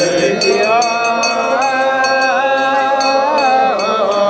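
Voices singing an Eritrean Orthodox church hymn in long, slowly moving held notes, over a steady percussive beat of about two to three strikes a second.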